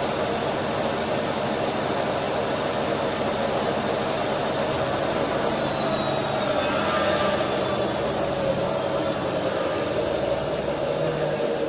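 Washing machine or tumble dryer running: a steady rushing hum with a thin high whine that starts to slide slowly lower in pitch about halfway through.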